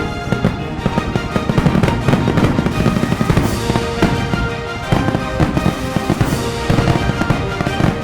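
Fireworks bursting with rapid low bangs and crackling, mixed with background music with sustained tones.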